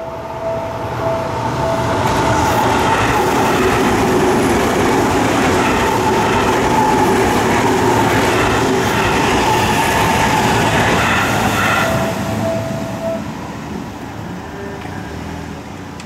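Seibu Ikebukuro Line commuter train passing over a level crossing, its running and wheel noise building about two seconds in and dropping away about twelve seconds in. The crossing's warning bell rings in a repeating tone at the start and again just after the train has gone by.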